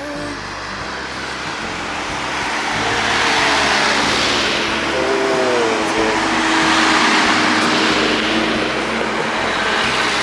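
Toyota Land Cruiser 40-series 4x4s driving past one after another, engine and tyre noise swelling and fading about three times as each vehicle goes by.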